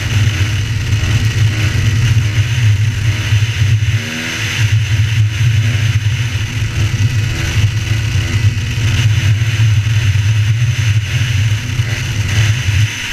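Kawasaki KX250F dirt bike's single-cylinder four-stroke engine running hard at a steady throttle through a long wheelie. The throttle eases briefly about four seconds in, then the engine pulls steadily again.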